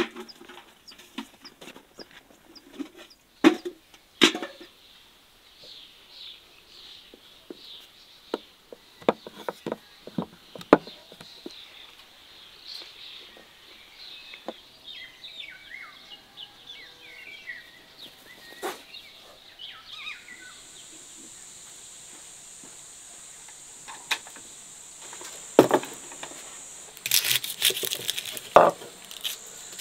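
Rural outdoor ambience: birds chirping, with scattered knocks and clicks of handling and a cluster of louder knocks near the end. A steady high insect-like whine comes in about two-thirds of the way through.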